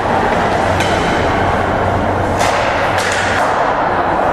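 Ice hockey play in an arena: sticks and puck knocking sharply three times, about one second in and twice more two to three seconds in, over a steady arena din with a low hum.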